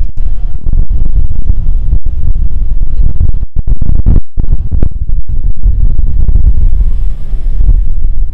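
Loud, low exhaust rumble of a lowered Mercedes-Benz CLS sedan driving slowly past close by. The sound cuts out briefly a couple of times near the middle.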